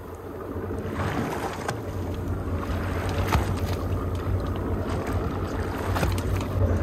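Boat engine running at idle, a steady low hum, with wind on the microphone and a few brief knocks.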